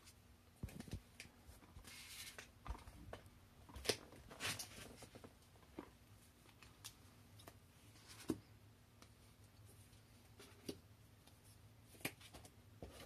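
Plastic-sleeved game cards being dealt onto a tabletop: faint scattered taps and soft swishes as cards are slid off the hand and laid down, busiest in the first few seconds and sparser afterwards.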